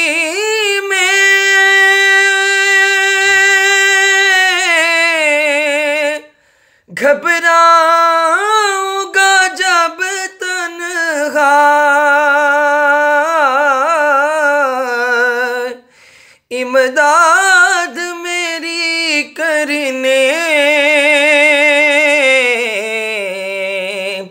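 A man singing an Urdu naat unaccompanied, in a high voice with long held notes and wavering ornaments. The voice breaks off briefly twice, about six and about sixteen seconds in.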